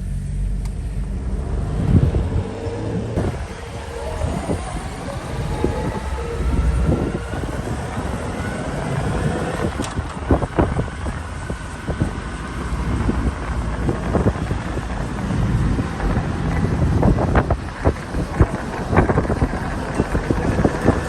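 Motorcycle engine running under way, rising in pitch as it accelerates for several seconds, with wind rumbling and buffeting on the microphone.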